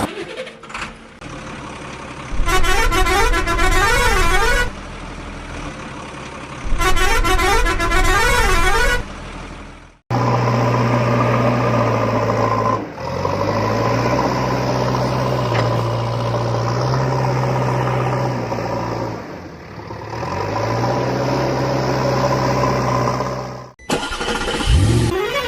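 Electronic toy-vehicle sound effects: a warbling siren-like tone plays twice for about two seconds each, then a steady synthetic engine hum whose pitch steps up and down, and the warbling tone returns near the end.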